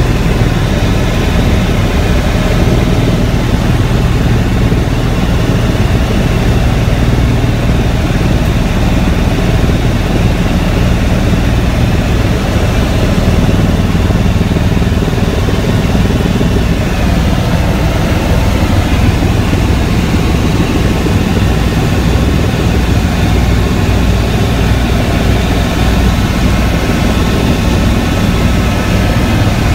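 Helicopter rotor and engine running steadily, heard from inside the cabin as a loud, even low drone.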